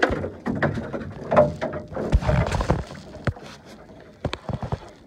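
A jumble of irregular knocks, thumps and short splashes aboard a small open fiberglass fishing boat, with a few sharp clicks, as a catch is handled at the side of the boat.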